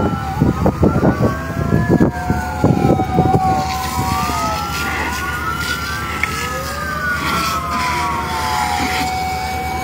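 Several fire truck sirens wailing at once, their pitches slowly rising and falling and overlapping one another. Low rumbling noise runs under the first few seconds.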